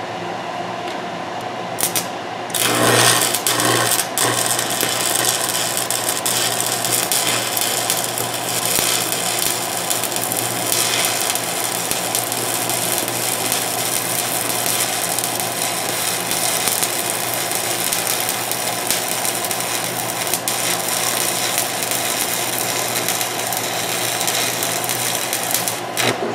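Stick welding arc on cast iron, running a bead along a ground-out crack in a jack body. After a couple of brief scratches the arc catches about two and a half seconds in, then burns with a steady crackle and hiss, cutting off just before the end.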